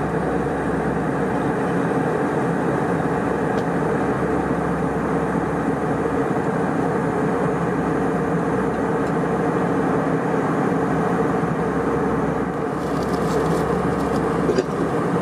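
Steady cabin drone of an Airbus A320 in cruise: engine and airflow noise heard from inside the passenger cabin. A few faint clicks come near the end.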